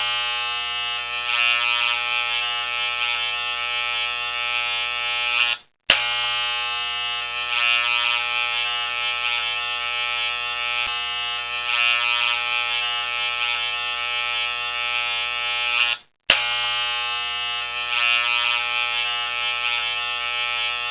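A steady, buzzing tone rich in overtones, played as a loop: it cuts out briefly about six seconds in and again about sixteen seconds in, then starts over.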